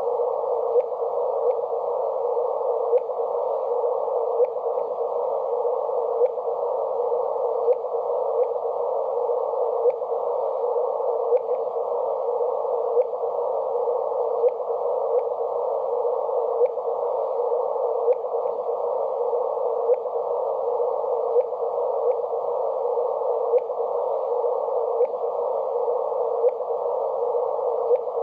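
Sonified gravitational-wave detector signal: a steady, narrow-band static hiss like a radio between stations, with faint ticks a little under a second apart.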